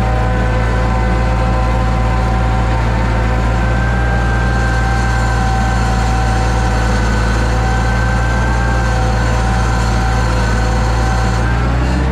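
Gehl 6625 skid steer engine running steadily, with a steady whine over it that the owner thinks comes from the hydraulic pump. The engine note shifts slightly near the end.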